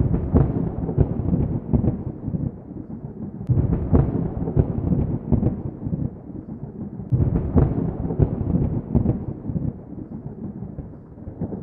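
Low, muffled rumbling broken by clusters of heavy thuds, coming in three swells and easing off near the end.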